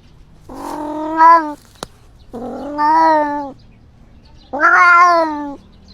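Domestic cat meowing three times, each meow drawn out for about a second at a steady pitch. There is a short sharp click just after the first meow.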